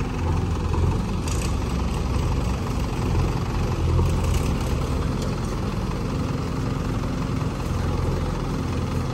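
A heavy diesel engine running steadily at low revs.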